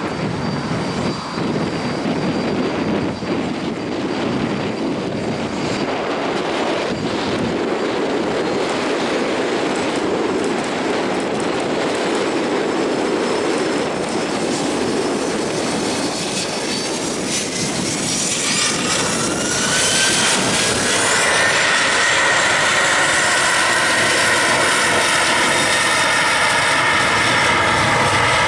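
A Boeing 737-800's CFM56 turbofan engines run at taxi power, with wind noise on the microphone. About two-thirds of the way through, the engines spool up with a rising whine and settle into a louder, steady whine.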